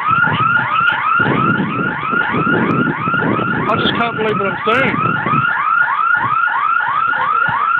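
Electronic alarm sounding continuously: a loud, fast warbling tone that sweeps up and down about three times a second. A low rumble of noise runs beneath it and fades out about five seconds in.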